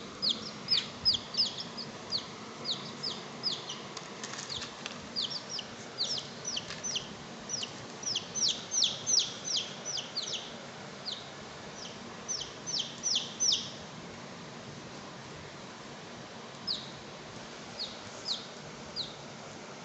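Baby chick peeping: high, falling peeps come in quick runs, then thin to a few scattered peeps after about 14 seconds.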